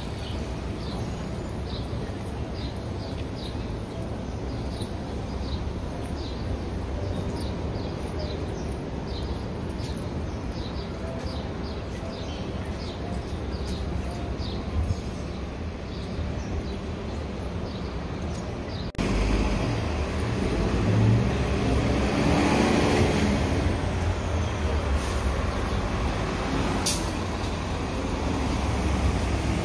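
City street traffic noise, steady and moderate. About two-thirds of the way through it jumps louder, with an articulated city bus running close by.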